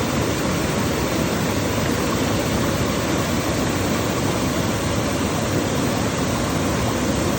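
Small stream of water flowing and splashing with a steady rushing sound.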